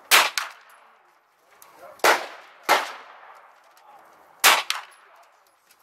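Four gunshots at irregular spacing: one just after the start, two about two and three seconds in, and one about four and a half seconds in. Each sharp report is followed by a short ringing echo.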